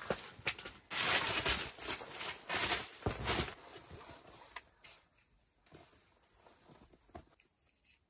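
Rustling and crinkling of a welding blanket being handled and hung against the tent wall, loudest in a rough burst from about a second in to about three and a half seconds, then softer rustles and a few light knocks.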